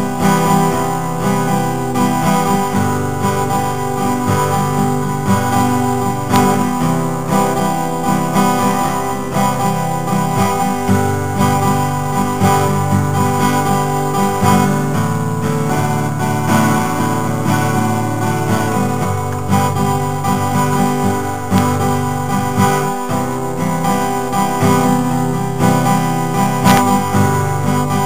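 Background music led by guitar, playing steadily throughout.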